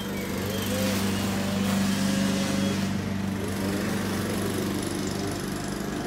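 Lawn mower engine running steadily, mowing grass.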